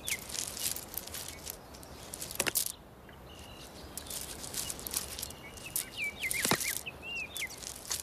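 An Egyptian vulture hammers a stone against an ostrich egg to crack the hard shell: two sharp knocks, one about two and a half seconds in and another near six and a half seconds, over a scratchy crunching of gravel. Small birds chirp in the background near the end.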